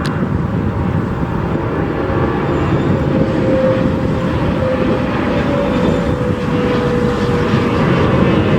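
Passenger airliner's jet engines during departure: a steady loud rushing noise that builds slightly, with a faint whine that slowly falls in pitch.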